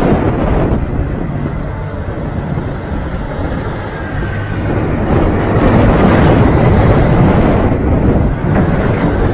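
Wind buffeting the microphone over the running diesel engine of a Komatsu hydraulic excavator as it swings its boom and bucket; the sound grows louder about halfway through.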